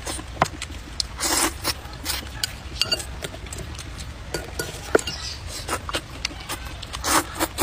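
Close-up eating sounds: noodles slurped and chewed with wet mouth clicks, and chopsticks clicking against the bowl. Two longer slurps stand out, about a second and a half in and near the end.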